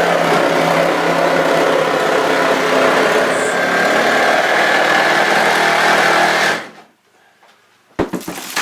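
Power saw running steadily as it cuts through the floor, stopping abruptly about six and a half seconds in, followed by a single sharp knock near the end.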